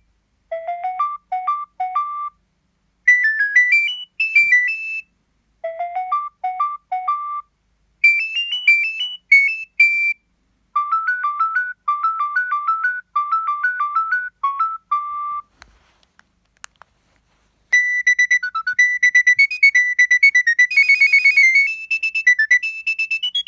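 Preloaded ringtones on a Nokia 7250i mobile phone playing through its small speaker. First a short beeping melody, one note at a time, repeats several times. Then comes a brief pause with a couple of faint clicks, and a different, busier ringtone tune starts about 18 seconds in.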